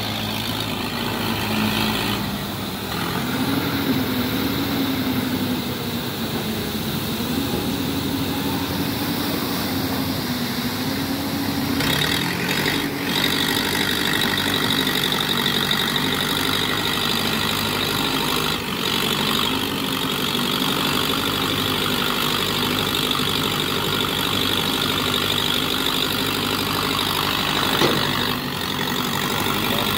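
Heavy machinery engines running steadily: a low hum that wavers slightly in pitch under a constant hiss, with no break.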